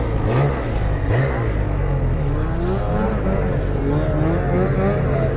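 Ski-Doo 850 two-stroke snowmobile engine running under way, its pitch rising and falling as the throttle is worked.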